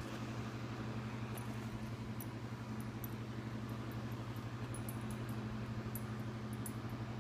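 A steady low hum, even throughout, with faint light ticks here and there.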